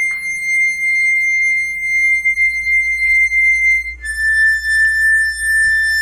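Harmonica played high in its range: one long high note held for about four seconds, then a step down to a slightly lower note held to near the end.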